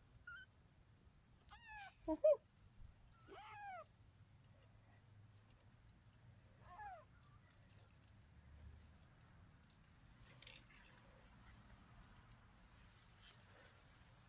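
Young Maine Coon cross kittens mewing: about four short, high mews that rise and fall in pitch in the first seven seconds, the loudest about two seconds in. Crickets chirp steadily and faintly in the background.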